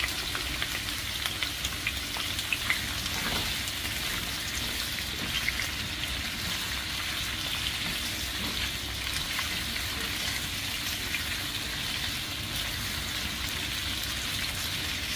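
Cubed potatoes, carrots and red bell pepper sizzling steadily in hot oil in a nonstick wok, with scattered crackles and a few sharper pops in the first few seconds. The vegetables are turned with a plastic spatula now and then.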